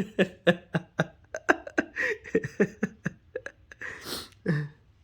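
A person laughing in short, rapid voiced bursts, about four a second, with a sharp in-breath about four seconds in and one last burst just after.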